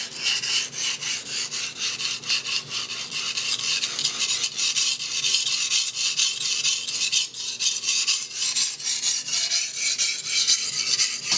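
White-steel cleaver blade stroked back and forth on a 320-grit Nubatama Bamboo waterstone: a quick, rhythmic gritty scraping with each stroke. The sound is softer now that the stone is more hydrated.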